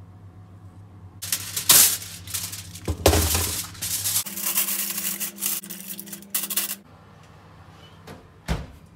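Aluminium foil crinkling and rustling as it is handled and pressed over a pot, for about five seconds. Near the end, a single thump as an oven door is opened.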